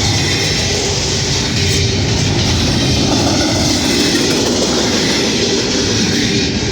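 Freight train rolling past: steel wheels running over the rails make a loud, steady rumble and rattle with some clickety-clack.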